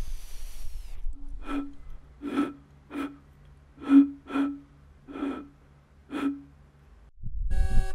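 A bamboo flute sounding seven short, breathy toots, all on the same note, over a faint low hum. Near the end a car horn starts honking. A hiss dies away about a second in.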